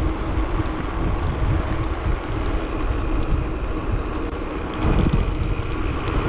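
Wind buffeting the microphone, with a low, uneven rumble, over the steady road noise of mountain bike tyres rolling on bitumen while riding.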